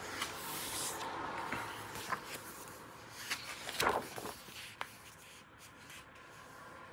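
Pages of a hardcover art book being handled and turned: soft paper rustling with a few small crackles, and a louder crackling sweep as a page turns about four seconds in.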